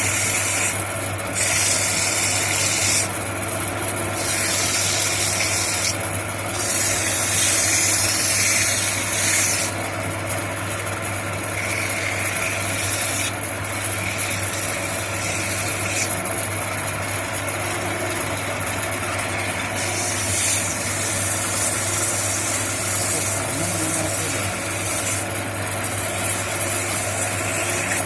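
A homemade wood copying machine running with its motor humming steadily while the cutter bites into wood in repeated spells of one to three seconds, each giving a hissy, rasping cutting noise.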